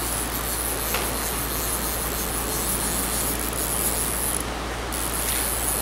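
Steady rushing of a shallow stream flowing over rocks, with a couple of faint ticks.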